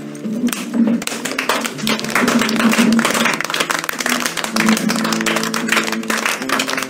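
Several people clapping their hands in a quick, dense patter, over acoustic guitar music.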